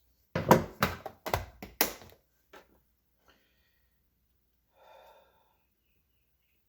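Close handling noise at a workbench: a quick run of about six sharp clacks and rustles in the first two seconds, then a couple of faint clicks and a brief soft rustle.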